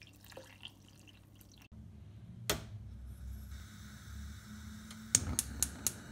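Water poured from a plastic jug into a steel saucepan of diced pumpkin, faintly. After a cut comes a sharp click, then a faint steady high whine from the glass-top electric hob, with a quick run of clicks near the end.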